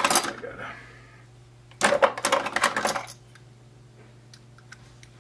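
Small metal rotor-head parts of a model helicopter (blade grip, bearings, hex driver) clinking and rattling as they are handled. There is a short burst at the start and a longer clatter about two seconds in, then a few faint ticks.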